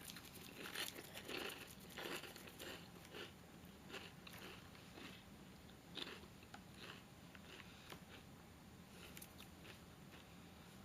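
A person crunching and chewing potato chips with ketchup: faint, irregular crunches that thin out after about seven seconds.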